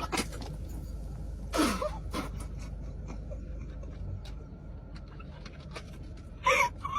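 Non-speech vocal sounds from a girl: one loud sound falling in pitch about a second and a half in, and a short gasp-like burst near the end, with scattered small clicks in between.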